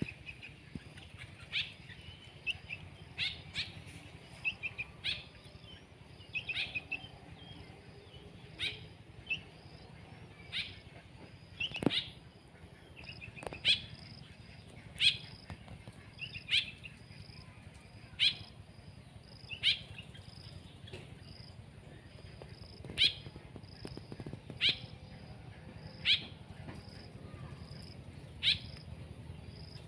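A small bird calling outdoors: short, sharp chips repeated every second or two, with a few warbled notes in the first several seconds.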